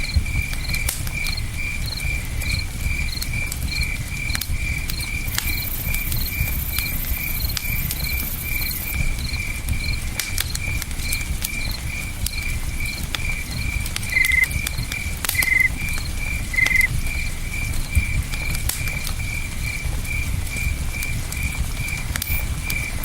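Crickets chirping in a steady rhythm, about three chirps a second, over the low rush of a flowing river and scattered small crackles and pops from a campfire. Three louder, slightly lower chirps stand out partway through.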